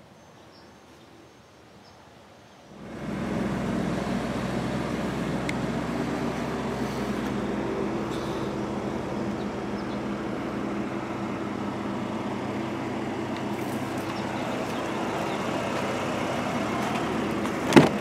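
A vehicle engine running steadily after a few quiet seconds, with a sharp knock near the end.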